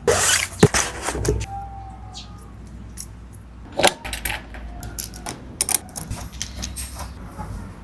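Metal parts clicking and rattling in a run of sharp, irregular clicks, over a low steady rumble.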